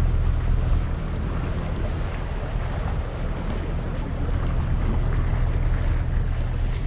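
Sailing catamaran under power: the steady low drone of its engine under wind rushing across the microphone, with water moving along the hulls.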